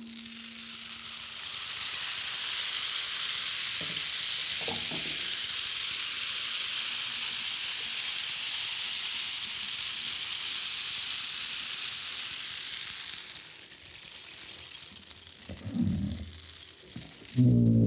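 A steady high hiss, even and without pitch, that fades out about thirteen seconds in; brief low pitched sounds follow near the end.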